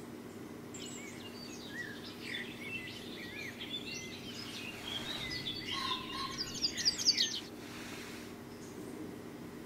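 Small songbirds chirping and warbling, starting about a second in and growing busier, with a quick run of high notes as the loudest part near seven seconds, then stopping. A low steady hum sits underneath.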